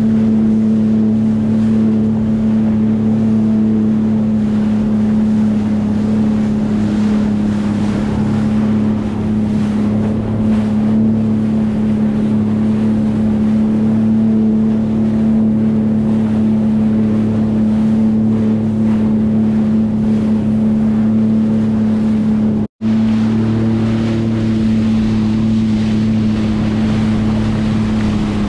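2020 Sea-Doo Fish Pro jet ski's three-cylinder Rotax engine running at an even trolling speed of about 10 knots, a steady drone, with water rushing past the hull and wind on the microphone.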